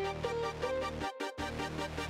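Electronic background music: a repeating synth melody of held notes over a low bass line, with a short break about a second in.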